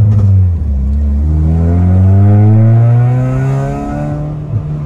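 Honda Mobilio's 1.5-litre four-cylinder engine revving hard under acceleration, heard from inside the cabin. The pitch climbs steadily, then drops back about four seconds in.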